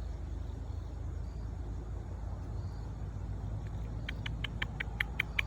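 Steady low outdoor rumble, like distant road traffic. About four seconds in, a quick run of about ten short high chirps.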